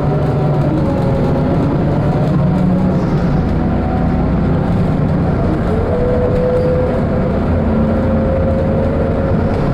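Daewoo BS120CN bus with a DL08K diesel engine and Allison six-speed automatic transmission running on the road: a steady drone of engine and drivetrain, with a steady whine coming in about six seconds in.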